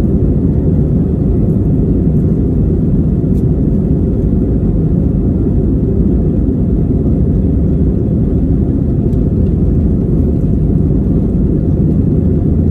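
Cabin noise of an easyJet Airbus A320-family jet on its takeoff roll: the engines at takeoff power and the wheels on the runway make a loud, steady low rumble.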